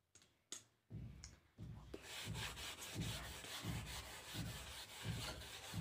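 An eraser rubbing chalk lines off a blackboard slate in repeated back-and-forth strokes, about three strokes every two seconds, starting about a second in after a couple of light clicks.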